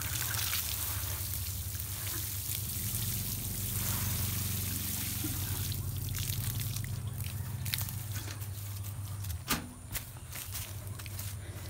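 Water sprinkling from the rose of a metal watering can onto freshly dug soil around a young seedling. The trickle runs steadily, and two short knocks come near the end.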